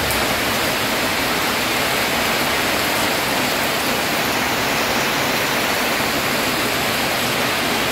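Heavy rain pouring down, a steady loud hiss with no breaks.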